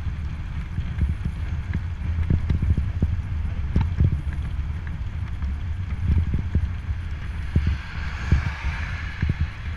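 Wind buffeting the microphone of a helmet-mounted action camera while cycling, a steady low rumble broken by irregular thumps. About three quarters of the way in, a car passes on the road alongside, a hiss that swells and fades.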